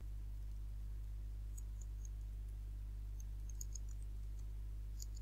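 Faint typing on a computer keyboard: irregular light key clicks, starting about a second and a half in, over a steady low electrical hum.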